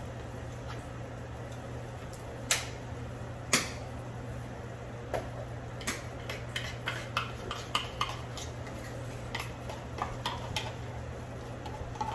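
Kitchen handling clatter: two sharp knocks, then a run of small clicks and clinks as a metal can and a spoon are handled at the counter and blender jar. A steady low hum runs underneath.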